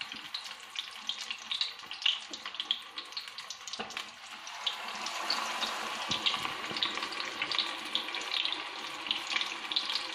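Batter-coated fish pieces deep-frying in hot oil in a kadai, a steady sizzle full of small crackling pops. The sizzle grows louder and denser about four seconds in, after a single light knock.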